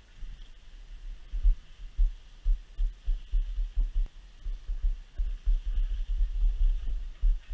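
Wind buffeting an action camera's microphone while it moves downhill on skis: low, uneven rumbling thumps that come thicker in the second half, over a faint hiss.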